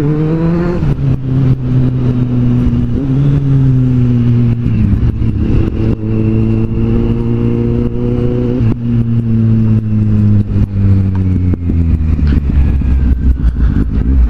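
Kawasaki Z750's inline-four engine under way, its pitch climbing as it accelerates and dropping at each upshift: about a second in, near five seconds and near nine seconds.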